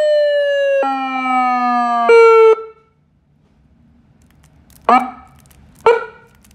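SA5200 electronic police siren sounding a two-tone pattern, switching between a high and a low tone every second or so, each tone sliding slightly down. It cuts off suddenly after about two and a half seconds. About two seconds later come two short, sharp blips a second apart.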